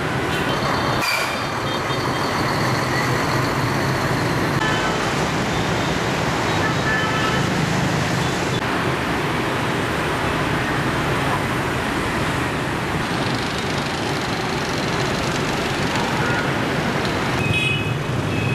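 Dense city street traffic, mostly motorbikes with some cars, running steadily. The sound changes character abruptly several times as one street recording gives way to another.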